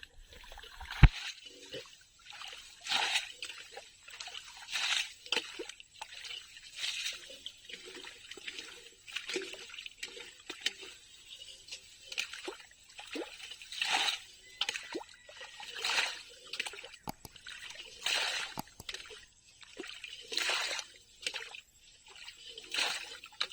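Water in a shallow drain splashing and sloshing, in a run of short splashes about every one and a half to two seconds.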